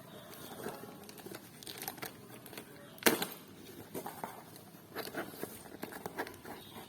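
Packaging being handled and torn open: irregular crinkling and tearing, with a sharp snap about three seconds in and smaller snaps after.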